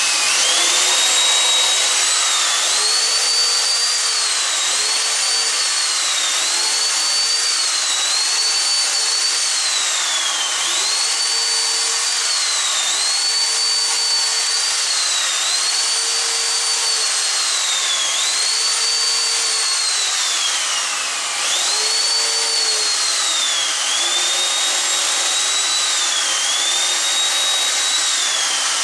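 Corded electric drill driving 2-inch Torx screws into mahogany: the motor whines without a break, its pitch sagging under load and climbing back about a dozen times.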